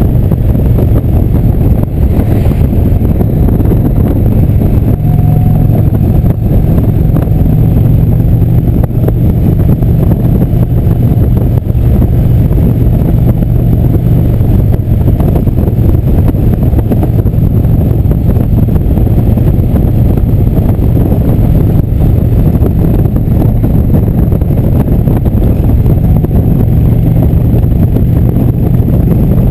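Indian motorcycle's V-twin engine running steadily at cruising speed, with wind rushing over the microphone.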